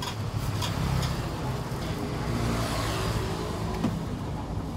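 Road traffic: motor engines running in a steady low hum.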